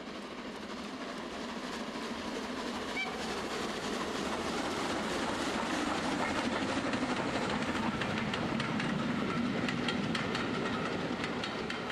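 Model train running past on the track, wheels clicking over the rail joints; it gets louder to a peak in the middle and then fades away.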